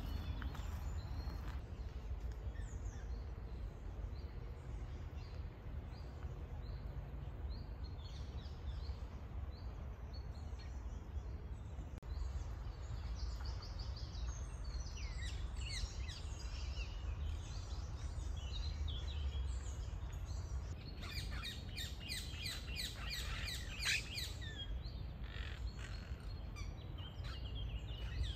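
Birds chirping and calling, with a busier run of rapid chirps about three-quarters of the way through, over a steady low rumble.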